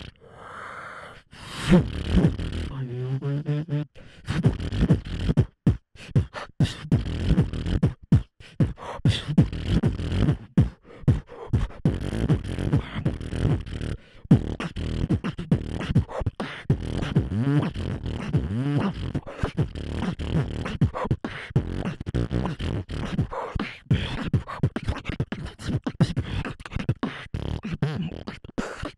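Beatboxing into a handheld microphone: fast percussive mouth sounds, kicks, snares and hi-hat clicks in a driving rhythm, with a few sliding pitched vocal tones woven in.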